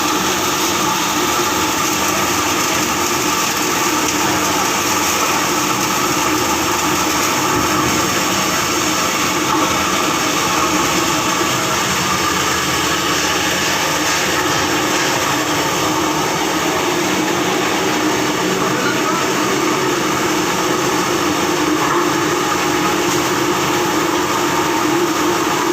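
Industrial washing machine for plastic scrap running steadily: a loud, constant mechanical noise with a steady hum and no pauses or changes.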